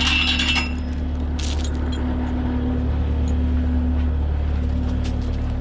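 Diesel engine of the recovery equipment idling steadily, with a brief metallic clink of chain right at the start and a few faint clicks later.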